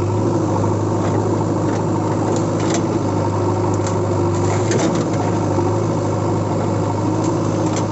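Steady motor hum like an idling engine, with a few light clicks over it.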